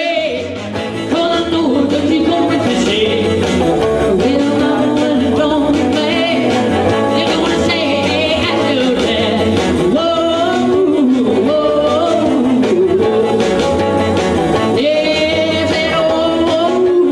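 Live rock and roll: a man singing into a microphone while playing an electric guitar, over a steady bass beat.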